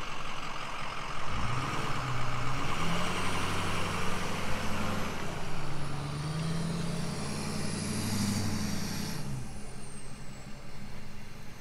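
Truck engine running up about a second in, pulling under load with a faint high whine, then easing off and fading near the end.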